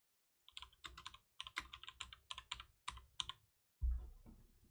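Typing on a computer keyboard: a quick, uneven run of keystrokes, then a single duller thump near the end.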